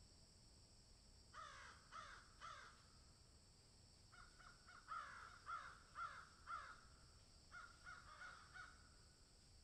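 Crows cawing in short runs of harsh caws: three together, a longer run of about six, then three more. A steady high-pitched drone sits underneath.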